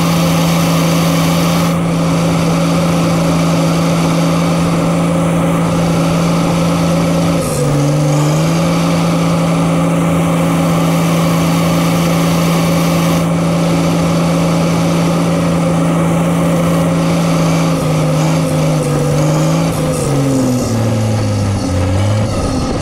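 Diesel engine of a Case earthmoving machine running steadily as it travels. It sags briefly in pitch about a third of the way in, then slows and drops in pitch in steps near the end.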